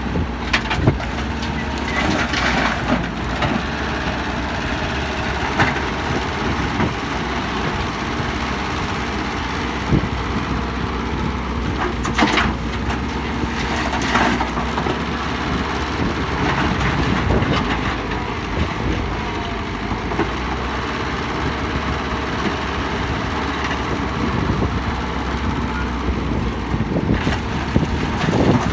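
Heavy diesel machinery running steadily, an excavator working while loading trucks, with a few sharp knocks and clanks now and then.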